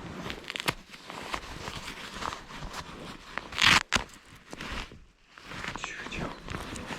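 Close rustling and crinkling handling noise with many small clicks, loudest in a burst a little past halfway.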